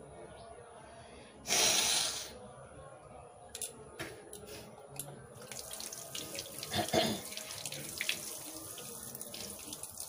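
Water running from an outdoor wall tap and splashing onto hands, starting about five and a half seconds in. Earlier, about a second and a half in, comes a short loud rush of noise.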